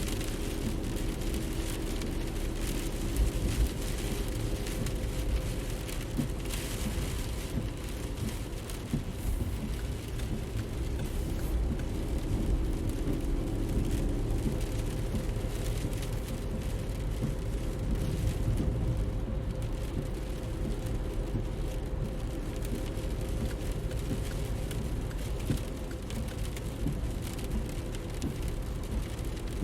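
A car running steadily, with a continuous low rumble and road or tyre noise, a steady hum, and scattered light ticks.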